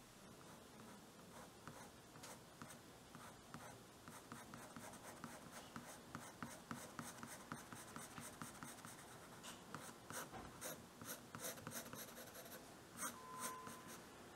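Soft graphite drawing pencil scratching across paper in quick, repeated shading strokes, faint and irregular, as a tulip's leaves are darkened. A brief tone sounds near the end.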